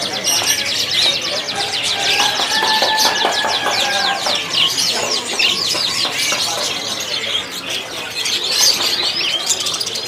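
A cage full of young canaries chirping and twittering together: a dense run of many quick, high chirps.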